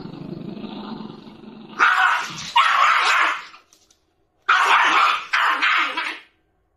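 Shiba Inu puppy food-guarding: a low growl, then four loud growling barks in two pairs as it snaps at a stick held near its bowl.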